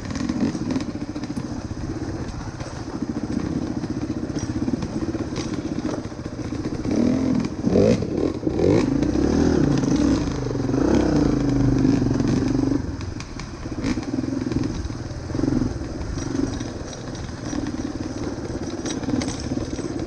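Single-cylinder dirt bike engine pulling at low speed over rough trail, its pitch rising and falling as the throttle is worked through the middle stretch. Clatter and knocks from the bike jolting over roots and ruts.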